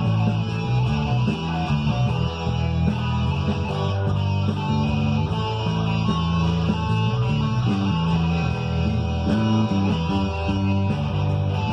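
Electric guitar played over a rock backing track with bass, low notes changing about once a second.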